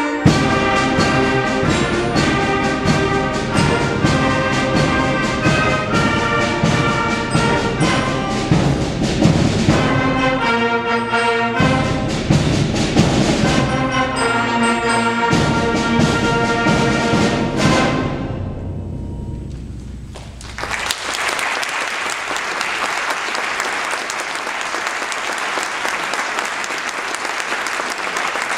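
Seventh-grade concert band of brass and woodwinds playing the closing bars of a piece, ending on a final chord that dies away; about a second later the audience breaks into steady applause.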